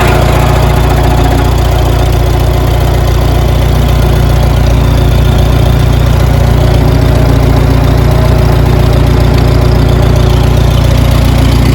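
Allis-Chalmers D17 tractor engine running steadily.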